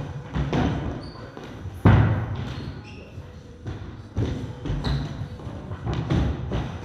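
Feet landing on wooden plyo boxes and a rubber gym floor during box jumps: a run of irregular thuds, the loudest about two seconds in.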